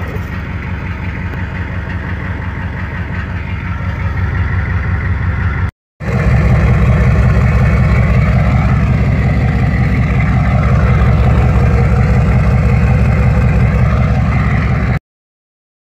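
Chevy 6.5-litre turbo-diesel V8 idling with an even low pulse, first through its old exhaust. After a short break about six seconds in, it idles louder through a 4-inch straight-pipe exhaust.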